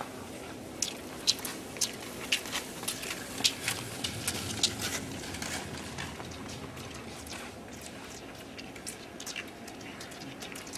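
Ski poles planting and skis kicking on cold, hard-packed snow as a classic-technique cross-country skier strides past: sharp crisp clicks about two a second, thinning out after about five seconds.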